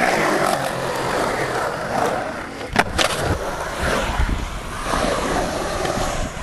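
Skateboard wheels rolling and carving on a concrete bowl, a continuous rough rumble. About three seconds in there are two sharp clacks close together from the board striking the concrete.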